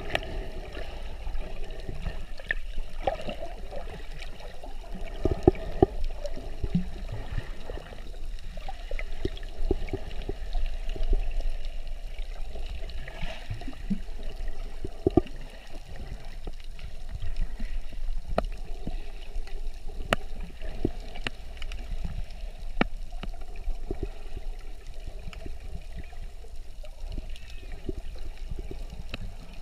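Underwater water sound heard through a submerged camera housing: a muffled low rumble and gurgling with scattered sharp clicks and crackles.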